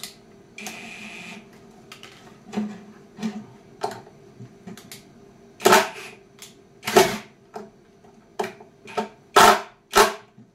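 Cordless drill fastening a metal drawer slide to a wooden drawer box, run in short bursts: a string of sharp clicks and knocks, with the loudest few in the second half.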